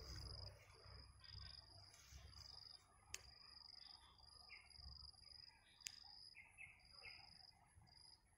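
Faint outdoor ambience: an insect chirping in short, even, high-pitched pulses about twice a second. A few brief bird chirps come in the second half, and there are two sharp clicks.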